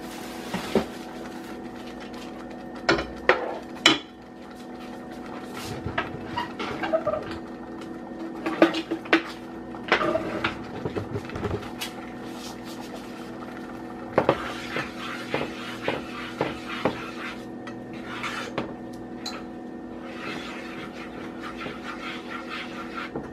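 Scattered clinks and knocks of a spoon and pans at the stove, and near the end a spoon stirring in a saucepan of sauce, over a steady hum.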